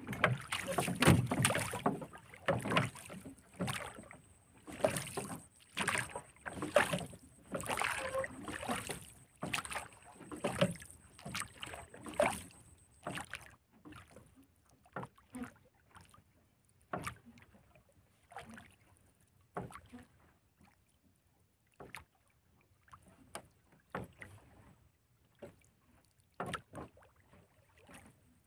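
Water slapping and lapping against the hull of a small wooden fishing boat in an irregular run of splashes, thinning a little before halfway to scattered light knocks.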